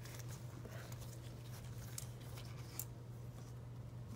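Faint, scattered metallic clicks and light scraping as the movable half of a JF011E CVT pulley is worked loose and lifted along its splined shaft, over a steady low hum.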